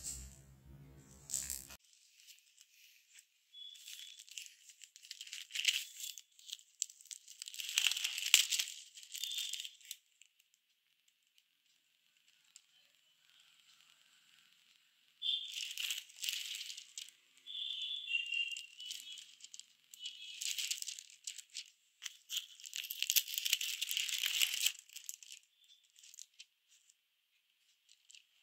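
Clear plastic sheet protectors in a file crinkling and rustling as the pages are handled and turned. The sound comes in irregular bursts, with a pause of a few seconds in the middle.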